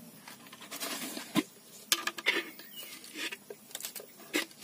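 Irregular light clicks and knocks, a few of them sharper, with brief rustling in between.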